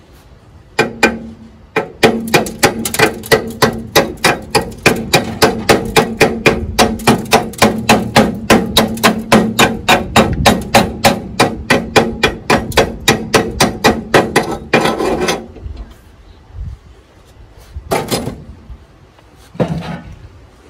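Chipping hammer knocking slag off a fresh stick weld on steel, fast even strikes about four a second for around twelve seconds over a steady ring from the metal. Two more separate knocks come near the end.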